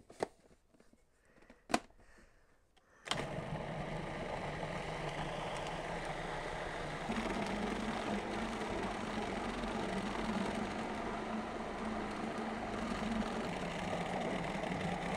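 Cuisinart food processor motor running steadily for about twelve seconds, mixing a thick batter of yuca flour, cheese, eggs and butter, and cutting off abruptly near the end. Before the motor starts, about three seconds in, there are two sharp clicks.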